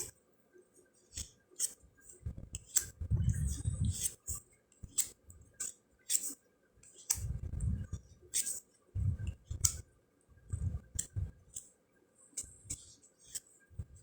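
Cardboard fortune cards being handled and flipped through, giving irregular sharp clicks and soft knocks and rubs against a table.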